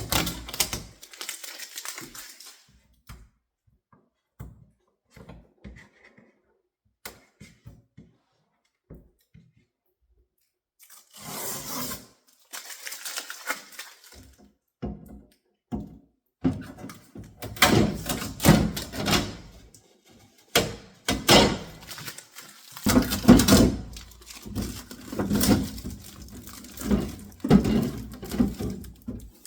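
Packaging and plastic parts of a new refrigerator being handled: irregular rustling and crinkling with scattered clicks and knocks. It is sparse in the first half and busier and louder from about the middle on.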